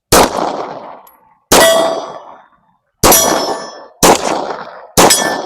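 Five 9mm pistol shots from a Glock 45, each followed by the ringing clang of steel targets. The first comes right at the start and the rest follow one to one and a half seconds apart.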